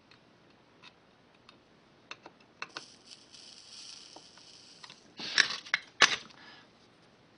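Faint hiss of flux sizzling under a soldering iron for about two seconds as a rail joint is soldered, with a few light clicks; then a short clatter of sharp knocks as the soldering iron is put back into its stand.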